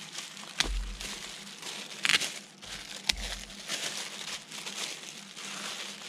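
Clear plastic bag crinkling and rustling as it is pulled open by hand, with sharper crackles about half a second, two seconds and three seconds in, and a few soft bumps.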